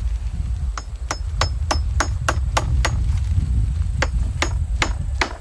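Steel claw hammer driving a nail into a pallet-wood post: a quick run of about eight ringing strikes, roughly three a second, a short pause, then another run of about six. The hard pallet wood takes the nail slowly.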